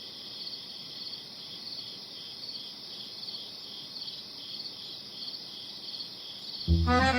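Crickets chirping in a steady, evenly pulsed rhythm. Music comes in near the end.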